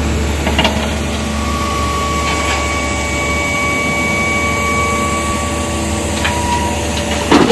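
Diesel engines of a Hyundai crawler excavator and a tipper truck running steadily while the excavator loads rock into the truck. A faint whine runs through the middle, with a couple of light knocks.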